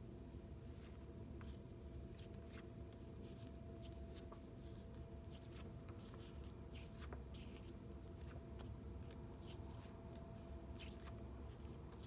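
Quiet room tone with a steady faint hum, broken by scattered faint clicks and rustles of paper flash cards being handled and swapped.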